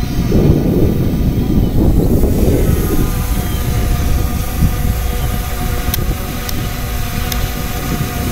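Strong wind buffeting the microphone, with a heavy gust in the first three seconds, over the steady multi-tone whine of the SJRC F22 drone's motors and propellers.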